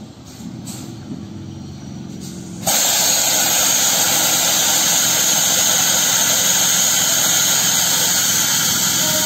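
An EMU local train rumbles slowly into the platform and comes to a stand. About two and a half seconds in, a loud, steady hiss of air from the train starts suddenly and holds.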